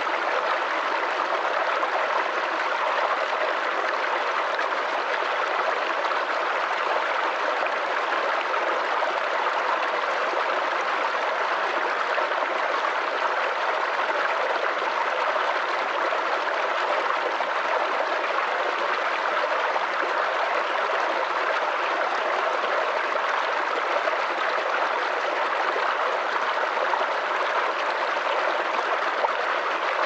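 Shallow rocky stream running over small cascades between stones: a steady, even splashing of water with no breaks or changes.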